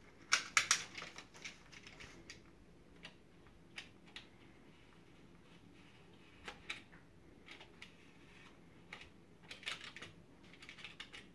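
Utility knife slitting the tape on a small cardboard box: a quick run of sharp clicks in the first second, then scattered light scrapes and ticks, busier again near the end.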